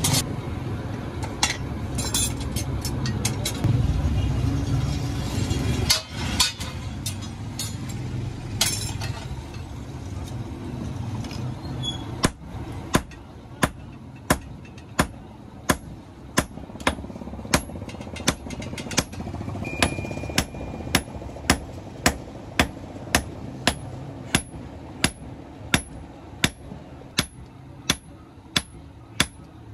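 A low rumbling noise with a few scattered clicks. About twelve seconds in it gives way to steady hand-hammer blows on red-hot iron laid on a steel anvil block, roughly one and a half strikes a second, each a sharp ringing clang.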